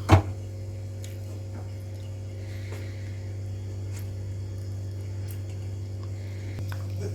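A steady low hum, with one sharp knock just after the start and a few faint clicks later on.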